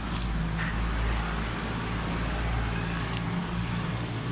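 Plastic blind-bag packaging crinkling in a few short bursts as it is handled and opened, over a steady low rumble.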